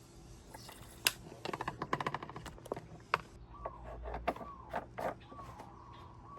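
Hand-tool work on a scooter's cooling system: a quick run of clicks, about ten a second, between sharp single clicks and knocks, with a few short squeaks in the middle.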